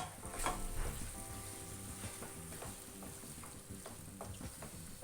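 Chicken pieces sizzling in a pan of onion-tomato masala as they are stirred in, with scattered clicks and scrapes of the spoon against the pan, loudest in the first second.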